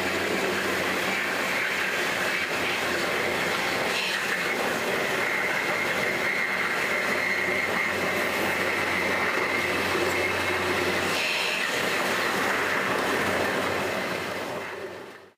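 Diesel train running on the rails, heard from the driver's cab: a steady rolling rumble with a high wheel squeal held throughout on the curving track. It fades out near the end.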